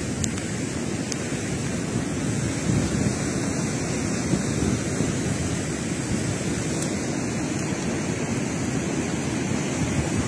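Muddy floodwater rushing steadily down a wadi swollen by torrential rain, a dense, unbroken sound of fast water.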